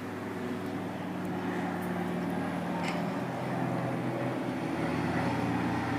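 Steady engine drone with a low hum, growing slowly louder, its pitch shifting lower about halfway through.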